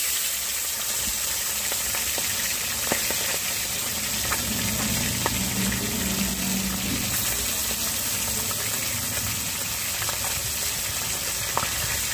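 Pabda fish frying in hot mustard oil in a kadai: a steady sizzling hiss with a few sharp spattering pops.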